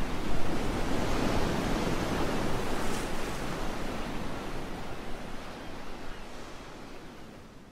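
Rushing, surf-like noise sound effect accompanying an animated logo reveal. It swells in the first second or so, then slowly fades away.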